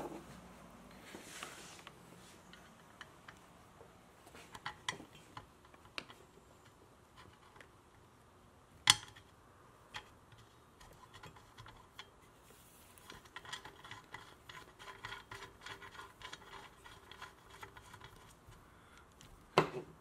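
Small metallic clicks and clinks as an oxygen sensor and its threaded bung adapter are handled and screwed by hand into the bung on a motorcycle exhaust header pipe. There is one sharper clink about nine seconds in and a run of quick small clicks in the last few seconds.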